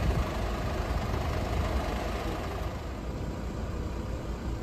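Idling engines of parked emergency vehicles, a steady low rumble that eases slightly about three seconds in.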